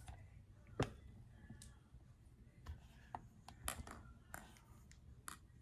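Faint, scattered clicks and taps of plastic Play-Doh toy pieces being fitted together and pushed down on the dough.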